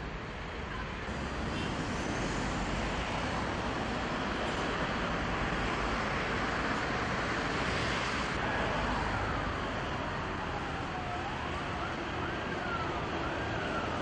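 Steady city road-traffic noise. In the second half a siren wails up and down over it.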